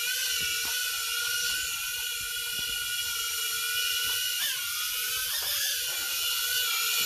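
Holyton HS330 mini quadcopter's motors and propellers whining steadily as it hovers, the pitch briefly dipping and recovering twice a little past the middle.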